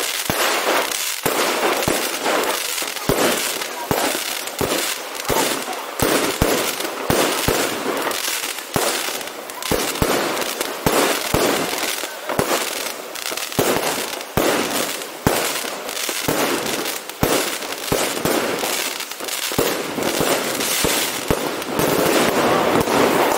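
Aerial fireworks display going off: a dense, unbroken run of sharp bangs and crackles, several reports a second.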